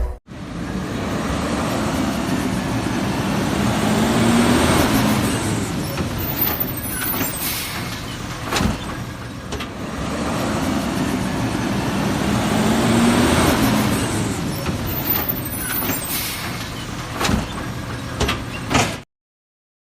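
Garbage truck sound effect: a truck engine running with a rising tone partway through and a few knocks. The same stretch of sound plays twice, then cuts off suddenly near the end.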